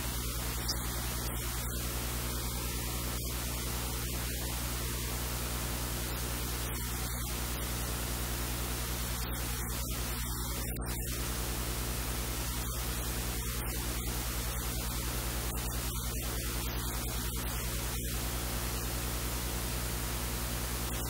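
Steady static hiss with a low electrical mains hum underneath. No distinct knife strokes stand out.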